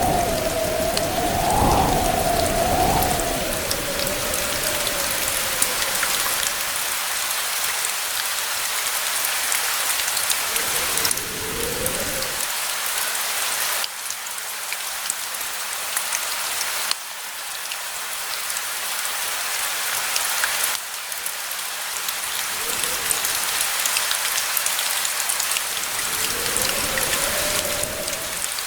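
Steady rain falling, with many distinct drops ticking on a surface. Low rumbles of distant thunder swell through the first several seconds, return briefly in the middle, and again near the end.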